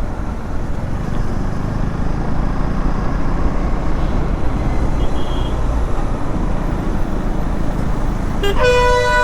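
Riding noise from a motorcycle on the road: steady wind and road rumble. About eight and a half seconds in, a vehicle horn sounds, a loud steady two-tone blast that carries on to the end.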